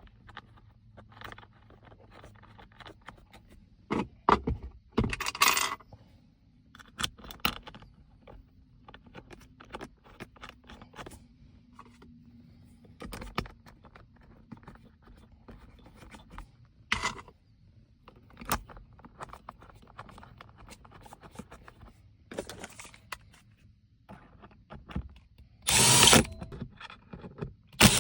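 Cordless drill-driver driving the Torx screws back into a truck's jump-seat console lid hinge in a few short runs, with scattered clicks and knocks from handling the plastic parts and screws.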